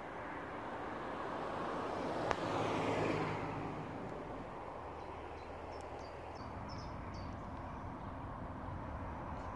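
Road traffic passing on the road beside the lay-by: one vehicle's rush builds and fades about two to three seconds in, over a steady background of traffic noise.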